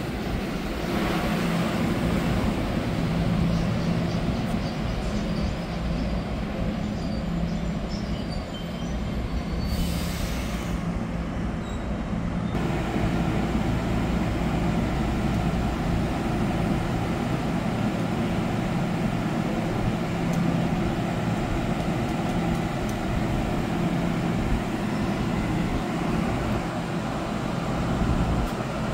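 NJ Transit multilevel commuter train at a station platform, making a steady low rumble with a constant hum. There is a short hiss about ten seconds in.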